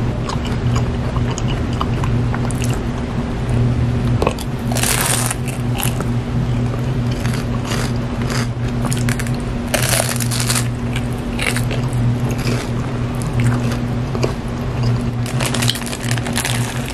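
Close-miked eating sounds: crunchy bites and chewing of a fried choco banana pie's crisp crust, coming in bursts, then a bite into a fried spicy chicken sandwich near the end. A steady low hum runs underneath.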